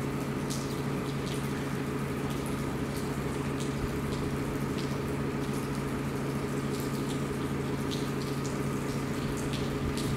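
Bombardier TRAXX electric locomotive moving slowly, giving a steady hum with a low drone under it and scattered faint ticks.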